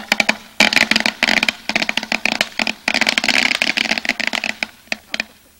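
A string of firecrackers going off: a rapid, dense run of pops lasting about four seconds, thinning to a few last bangs near the end.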